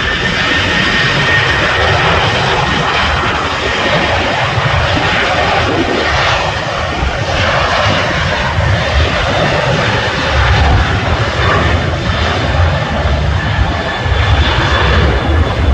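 Aircraft engines running at high power through a takeoff, a steady loud roar with a faint whine. Irregular low buffeting from strong wind on the microphone grows heavier in the second half.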